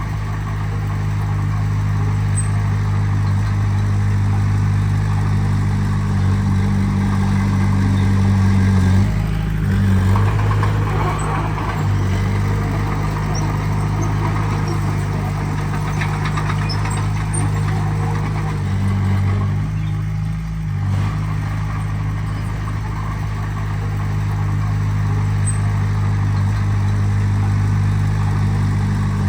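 Heavy-equipment diesel engine running steadily, its engine note shifting briefly about nine seconds in and again about twenty seconds in.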